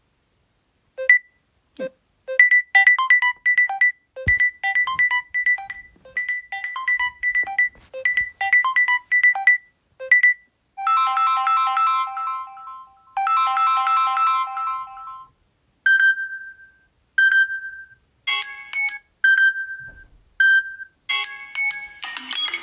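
Samsung Galaxy A20e stock ringtones playing in turn. First comes a quick melody of short plucked notes, then a sustained chime phrase heard twice. Next a single ping repeats about every second and a half, and a busier chiming melody starts near the end.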